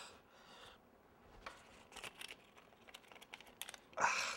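Scattered light clicks and taps of a small object being handled in the hands at a table, with a brief noisy rush near the end.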